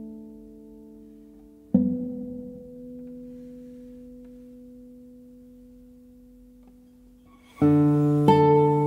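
Solo classical guitar with nylon strings: a note plucked about two seconds in is left to ring and slowly fade, then a loud full chord near the end starts a run of quicker notes.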